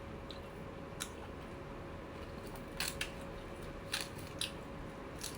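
Eating sounds: about six short, sharp, crisp clicks and crunches, irregularly spaced, over a steady faint hum.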